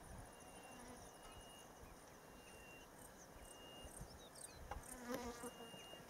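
Faint bush ambience of insects buzzing and trilling, with thin high tones repeating about once a second and a few short high chirps. A brief louder call comes about five seconds in.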